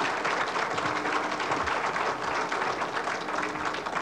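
A group of people applauding, many hands clapping steadily together.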